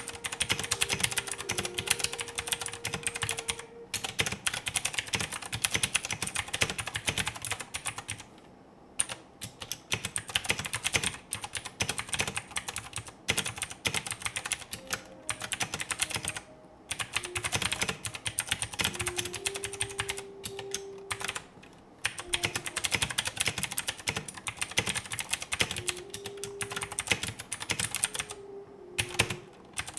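Fast typing on an AKKO 3084 mechanical keyboard with clicky AKKO blue switches: a dense run of key clicks, broken by a few short pauses.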